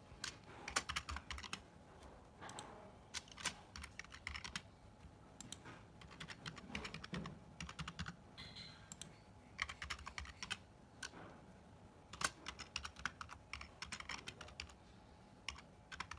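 Typing on a computer keyboard: runs of quick keystrokes in bursts with short pauses between them.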